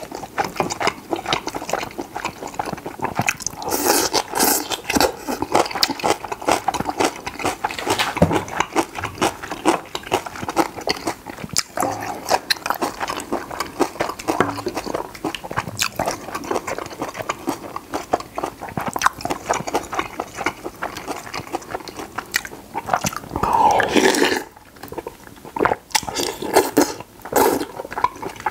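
Close-miked eating sounds: a man slurping cheese-coated spicy noodles and chewing them with wet mouth smacks and many small clicks. There are louder slurps around four seconds in and again near twenty-four seconds.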